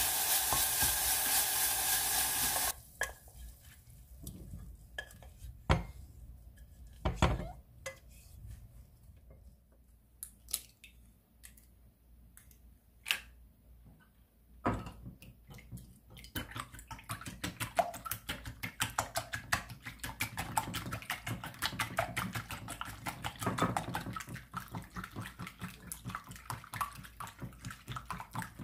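Diced ham and onion sizzling in a stainless saucepan as a wooden spoon stirs them; this stops suddenly about three seconds in. A few sharp knocks and clicks follow. From about halfway, a silicone whisk beats eggs in a glass bowl with rapid, rhythmic ticking, several strokes a second.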